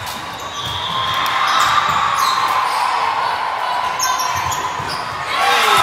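Volleyball rally in a large, echoing gym: ball hits and play on the court under players' calls and spectators' voices, getting louder near the end.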